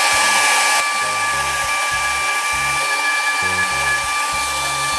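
Hand-held hair dryer running steadily, blowing hot air onto heat-shrink tubing on a fishing hook: a rush of air with a steady motor whine.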